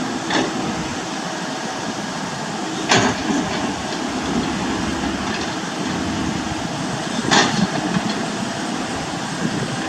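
Mini excavator running steadily, with two sharp knocks, about three and seven seconds in.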